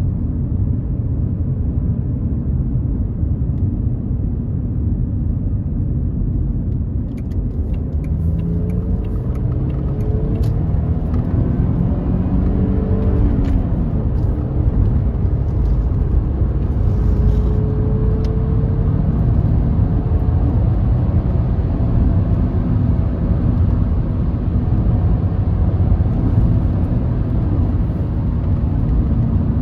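Audi A4 B5 2.8-litre V6 petrol engine on its stock exhaust, running steadily. Its pitch rises and falls a few times about a third of the way in, and again briefly around the middle.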